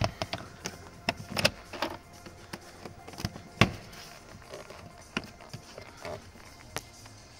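Plastic interior trim clicking and knocking as the dashboard end panel of an Opel Insignia is pried loose and pulled off its clips, with one sharp knock about halfway through.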